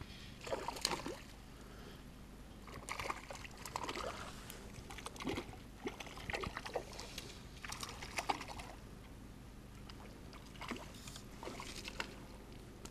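Water sloshing and splashing in irregular bursts, every second or so.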